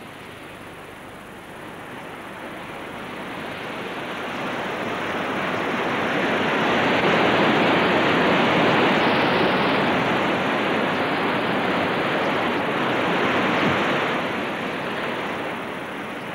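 Ocean surf breaking on a beach: a rush of wave noise that builds over several seconds, holds, and slowly falls away.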